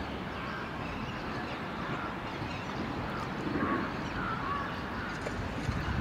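Outdoor ambience: steady background noise with faint, short bird calls scattered through it.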